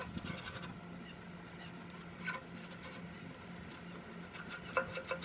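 Paper towels rubbing and scraping over the greasy inside of a Weber Genesis II gas grill's firebox, with a few light scuffs and taps, the sharpest near the end, over a steady low hum.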